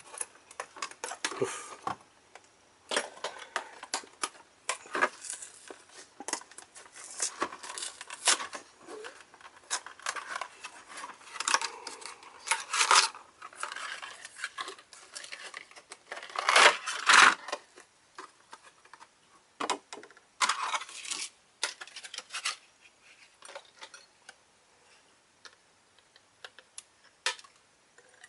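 A toy's clear plastic blister pack and cardboard backing being cut and pulled open with small scissors: irregular snips, crinkles and scrapes of stiff plastic, some louder bursts among quieter handling.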